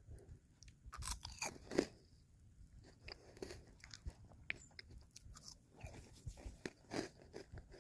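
Close-up chewing with crunching and lip-smacking: irregular crunches and smacks, the loudest about two seconds in.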